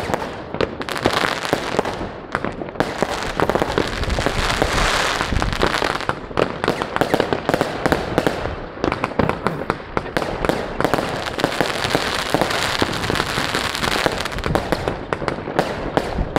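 Fireworks and firecrackers going off all around in a dense, continuous barrage, with many overlapping bangs and crackles and no pause.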